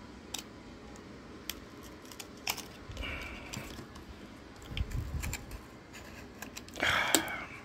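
Utility knife cutting and scraping through layers of tape on a small cardboard package, with scattered small clicks and a louder scrape and sharp click near the end.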